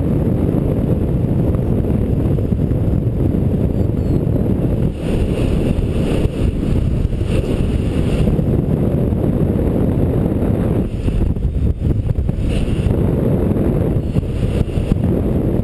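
Airflow buffeting the microphone during a free-flight glide: a steady, loud, low wind rumble.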